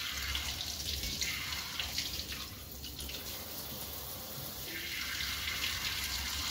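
Kitchen tap running into a stainless steel sink, the water splashing over a hand held in the stream and onto the steel; the splash changes a few times as the hand moves in and out of the stream.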